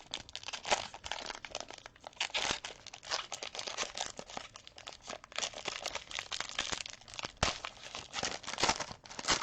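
Plastic wrapping crinkling and tearing as a pack of trading cards is opened by hand, with a dense run of small crackles throughout.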